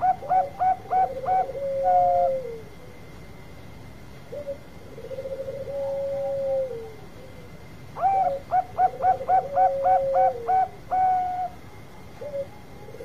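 Bangkok-type zebra dove (perkutut) singing its cooing song. Runs of about seven quick, short coos each end in a longer note, and they alternate with long, low, trilling coos. One run ends about two seconds in and another starts about eight seconds in.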